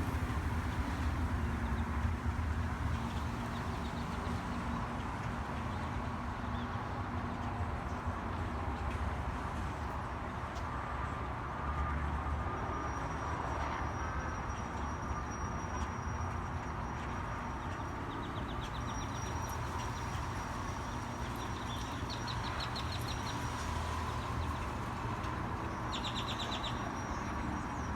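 A flock of birds chirping and calling, faint rapid trills and thin whistles coming and going, mostly in the second half, over a steady low background rumble.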